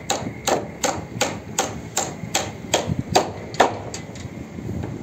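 Steel hammer driving nails into a timber roof rafter: about ten sharp blows at a steady pace of roughly three a second, stopping about three and a half seconds in, with one fainter knock after.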